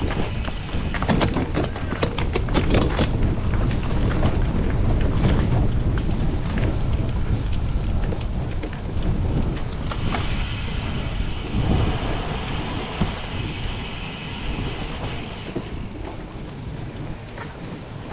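Cyclocross bike ridden hard over rough, bumpy course: a continuous rumble of tyres on rough ground with frequent rattles and clatter from the bike, and wind buffeting the microphone.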